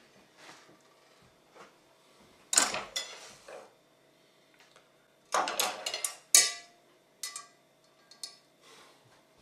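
Stainless-steel saucepan clanking as it is set down, and metal meat forks clinking and scraping against the pot while lifting a poached bacon joint out of the water. The clatter comes in two bursts, about two and a half and five and a half seconds in, followed by a few lighter clicks.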